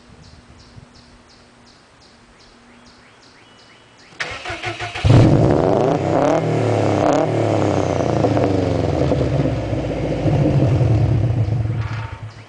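A loud motor starts up with a brief rattling crank about four seconds in, catches a second later and runs with a wavering pitch for about seven seconds, then dies away near the end.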